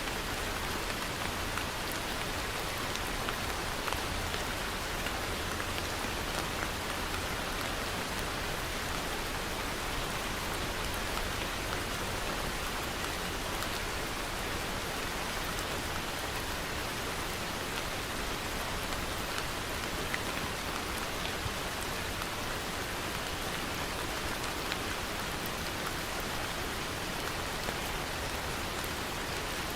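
Steady rain falling, an even hiss with many small drop ticks, unchanging throughout.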